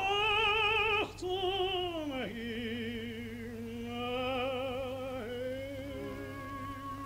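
Operatic tenor singing long held high notes with a wide vibrato and no words, breaking off twice, then dropping about an octave and climbing back up, while the orchestra comes in with a steady held chord near the end. A low steady hum of the old film soundtrack runs underneath.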